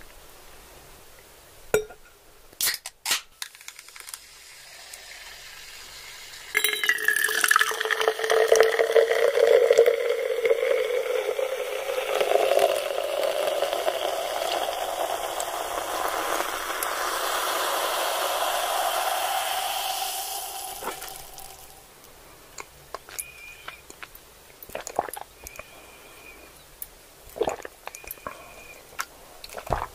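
A few sharp crackles, then liquid pouring steadily into a container for about fifteen seconds, its pitch slowly rising as it fills.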